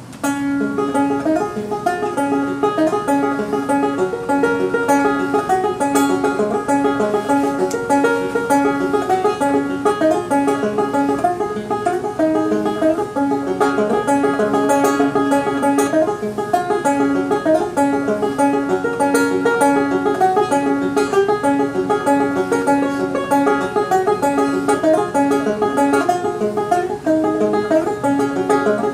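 Banjo played solo, a steady picked tune over a regularly repeating bass note.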